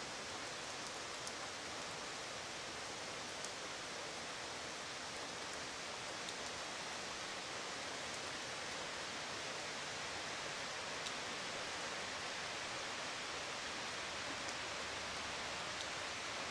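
Steady rain together with the rush of a flood-swollen creek: an even, constant hiss with a few faint ticks.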